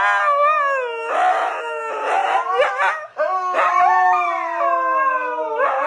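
Huskies howling together, long wavering notes that slide up and down in pitch with more than one voice at once, pausing briefly about three seconds in.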